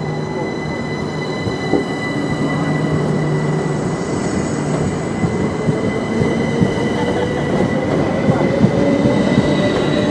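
Southern Class 377 Electrostar electric multiple unit accelerating away from the platform: the traction motor whine rises steadily in pitch from about halfway through, over a steady high whine, with wheel clicks over the rail joints coming thicker as it gathers speed.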